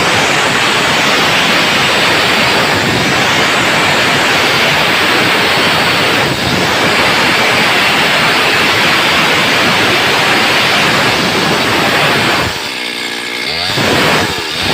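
Two-stroke chainsaw running at full throttle through a cut in wood. Near the end it comes briefly off load and its engine note sweeps down and back up before it bites in again.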